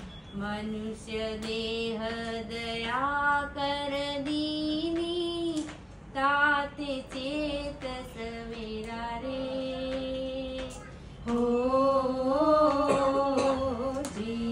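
A woman singing a slow song unaccompanied, holding long notes with gentle melodic turns and brief breaths between phrases.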